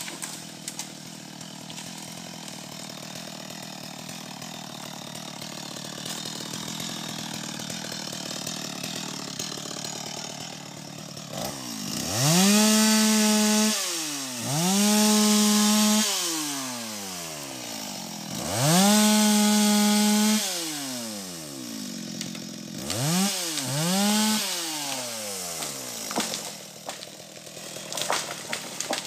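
Stihl MS 250 two-stroke chainsaw idling, then revved up to full speed three times, each held about two seconds, and blipped twice quickly near the end, dropping back to idle between.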